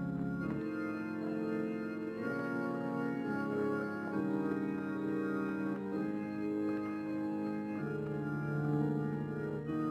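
Slow organ music of held chords, each changing to the next every second or so.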